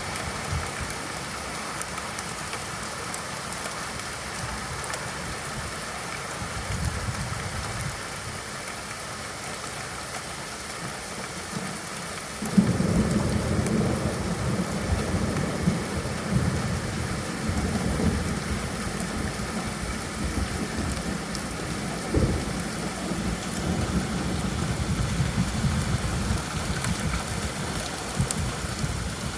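Steady rainfall. About twelve seconds in, a sudden crack opens a low rumble of thunder that carries on under the rain, with another sharp clap about ten seconds later.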